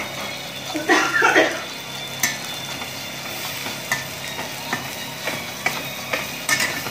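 A spoon stirring green chillies and gram flour in a steel kadai, over a steady sizzle of frying. There are sharp clinks of the spoon against the pan several times and a louder run of scraping about a second in.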